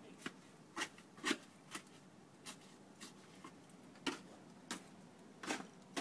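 Snow crunching: a run of short, sharp crunches at an uneven pace of about two a second.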